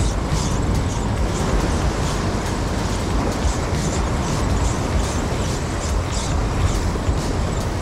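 Steady rush of wind and rough surf, with a spinning reel grinding faintly as it is cranked. The reel's bearing under the rotor is full of salt after a wave submerged the reel.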